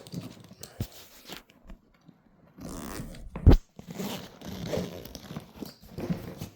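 Suitcase zipper being pulled open in several strokes, with rustling handling. One heavy thump comes about halfway through.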